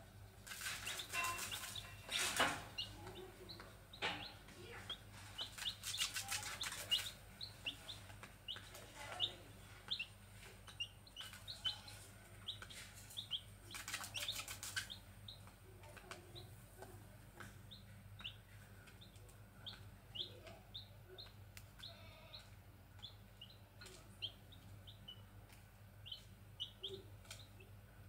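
Grey junglefowl chicks peeping: many short, high, falling peeps, often several a second. There are three louder bouts of rustling and wing fluttering, near the start, around six seconds in and about fourteen seconds in.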